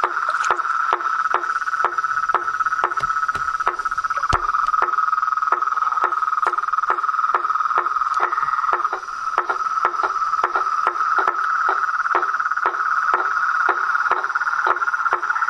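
Frog and insect chorus: a steady high trill runs under a rhythmic call that pulses about three times a second.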